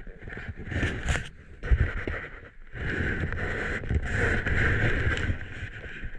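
Wind buffeting an action camera's microphone on an exposed snowy ridge, gusty and uneven, with a sharp thump nearly two seconds in.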